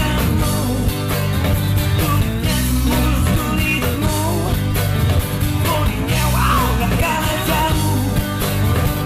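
Background rock music with vocals, a driving beat and a strong bass line.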